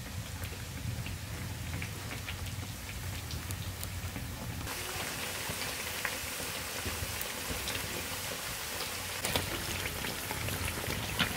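Hot oil sizzling steadily in a wide metal pan as triangles of qadmal dough deep-fry, with scattered small crackles and pops. The hiss grows brighter about halfway through, and a couple of sharper clicks come near the end.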